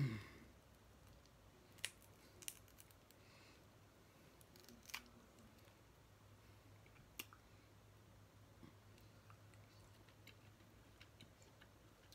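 Mostly near silence, broken by a few faint sharp cracks and clicks spread over the first seven seconds: snow crab leg shells being broken open.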